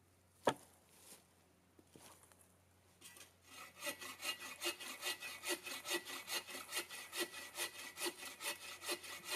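A single sharp knock about half a second in, then a hand saw cutting through a fallen wooden log or branch in steady back-and-forth strokes, about three a second, starting about three seconds in.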